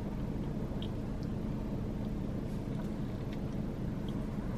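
Steady low hum of a running car, heard from inside the cabin, with a few faint soft clicks as applesauce is sucked from a squeeze pouch.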